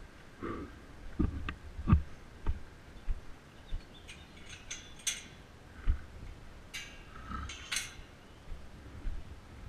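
Mountain bike jolting over a rough dirt trail: low knocks and thumps from the bike. Sharp metallic clinks and rattles come about five seconds in and again around seven to eight seconds in.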